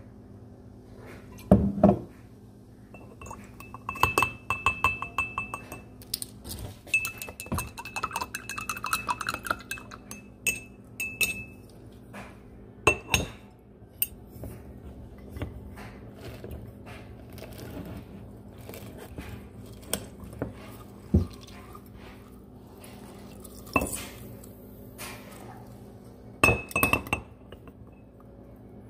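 Metal spoon stirring in a glass mason jar of water and apple cider vinegar, clinking against the glass, which rings for a few seconds at a time. Near the end come a few sharper knocks as lemon is pressed into the jar with a hand squeezer.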